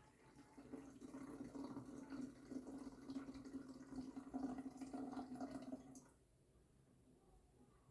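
Water being poured into the plastic water tank of a portable air cooler, a steady pour that stops about six seconds in.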